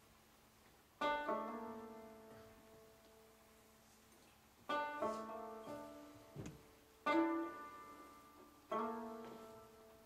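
A plucked lute played in slow, separate strummed chords: four or five strums, each ringing out and fading, two of them close together near the middle. A short soft knock falls between them.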